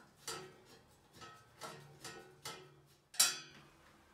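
Screwdriver knocking and clinking against a thin sheet-metal toilet roll holder while it is screwed to the wall, about six uneven knocks. The last, about three seconds in, is the loudest and rings briefly like thin metal.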